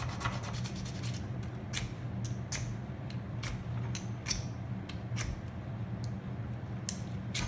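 Metal striker scraped against a ferrocerium fire rod: a quick run of fine scratching at first, then a series of short, separate scrapes about every half second, under a steady low hum.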